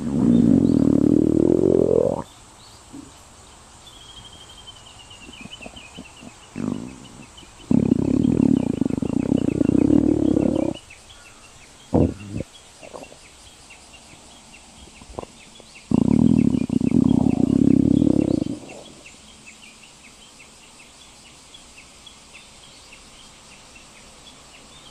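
A stomach growling: three long, loud rumbles of two to three seconds each, about eight seconds apart, with a few short gurgles between them.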